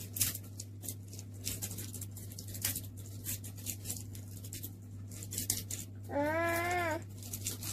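Small hard-plastic toy eggs and their plastic wrappers being handled, a steady run of light clicks, taps and crinkles. About six seconds in, a young child makes one wordless vocal sound that rises and then falls in pitch.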